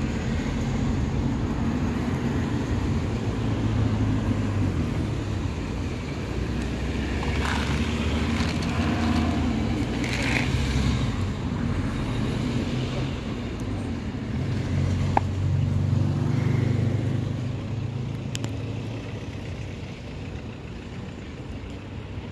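Steady rumble of road traffic, swelling twice as vehicles pass, with a few faint clicks and crackles over it.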